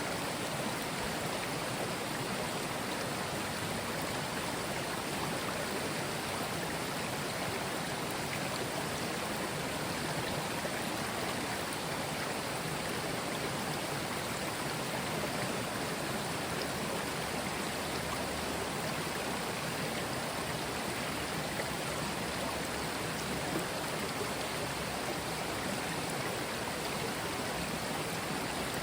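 Mountain stream flowing over stones: a steady rush of running water.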